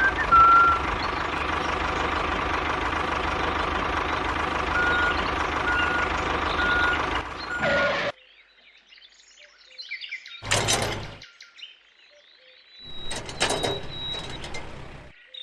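A machine runs steadily with short beeps repeating about once a second, and cuts off abruptly about eight seconds in. After that it is quiet apart from faint bird chirps and two brief noisy bursts.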